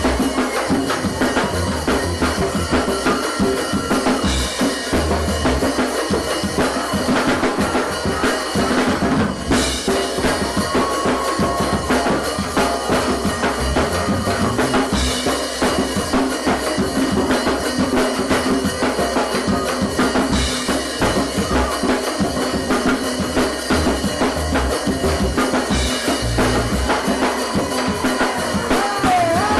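Live band playing with a drum kit keeping a steady beat over bass, a cymbal crash about every five and a half seconds.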